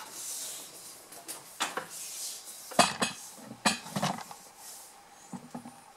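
Handling noise: about four sharp clinks and knocks, the loudest near the middle, with rustling between them, as an electrical cable and gear are handled.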